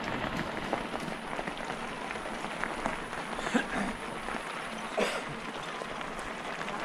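Mountain bike tyres rolling over a gravel track: a steady crackling noise scattered with small clicks, with a couple of brief louder bumps in the middle.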